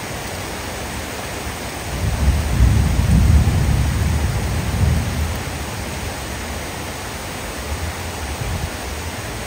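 Heavy rain falling steadily, with a low rumble of thunder that swells in about two seconds in and dies away a few seconds later.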